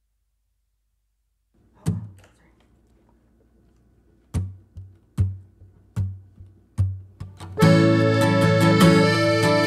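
Opening of a duet song: an acoustic guitar is strummed in single, spaced strokes that ring and fade, then about three-quarters of the way through a piano accordion comes in with full sustained chords while the guitar keeps strumming.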